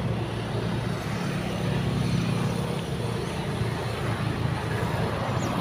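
A motor vehicle running past on the road, its engine hum building to a peak about two seconds in and then easing off.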